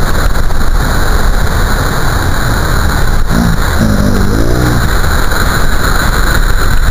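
Heavy storm surf breaking, a steady roar of crashing waves and whitewater.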